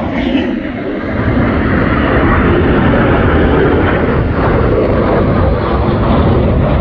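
Fighter jet flying past: loud, steady jet engine noise with a deep rumble, dipping slightly in the first second.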